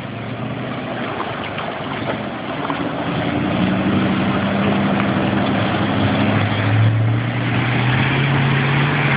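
A Toyota LandCruiser four-wheel drive's engine pulling the vehicle through a creek crossing, with water splashing and washing around its wheels. It grows steadily louder as the vehicle comes up close, and the engine note rises near the end.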